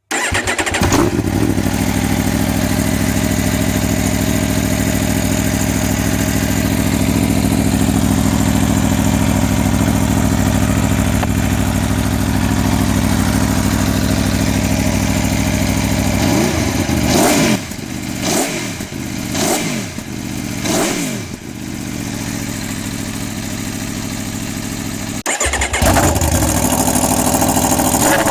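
Aprilia Tuono V4 motorcycle engine idling steadily through its exhaust, then revved four times in quick throttle blips, each rising and falling, before settling back to idle. Near the end the sound breaks off briefly and returns a little louder.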